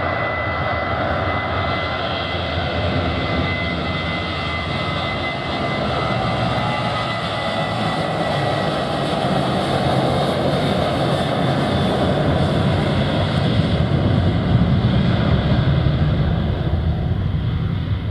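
Japan Airlines Boeing 737's twin jet engines at takeoff power during the takeoff roll. A high steady whine sits over the noise for the first several seconds, then the low rumble grows and is loudest near the end.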